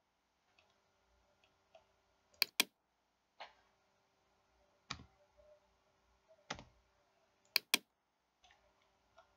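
Computer mouse buttons clicking: two sharp double-clicks, about two and a half seconds in and again near eight seconds, with a few softer single clicks between them.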